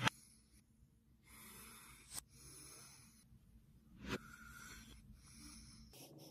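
A person breathing close to the microphone, soft hissy breaths of about a second each with short pauses between. Three sharp clicks cut through it, the loudest right at the start and the others about two and four seconds in.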